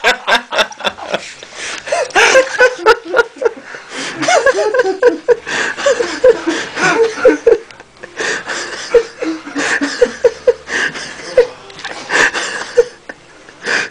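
Stifled giggling and snickering close to the microphone: runs of short, breathy bursts of suppressed laughter.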